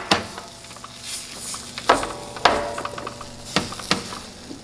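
Oven-hot roasted potato cubes being tossed on a sheet pan with two silicone spatulas: soft scraping and sizzling, broken by four sharp knocks of the spatulas on the pan.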